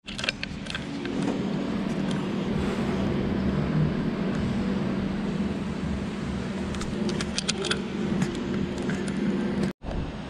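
Light clicks and rattles of a plastic throttle housing and its cable being handled over a metal workbench, over a steady low machine hum.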